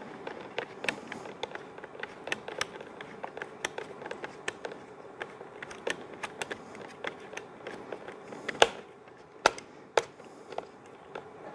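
Hand assembly with a multi-tool screwdriver: irregular small clicks and light taps as a screw is driven home and plastic mower parts are handled. A few sharper clicks come about nine to ten seconds in.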